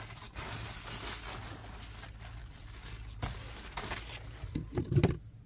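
Cucumber leaves and vines rustling as a hand pushes in among them to pick cucumbers, with a sharp click about three seconds in and a brief louder knock near the end.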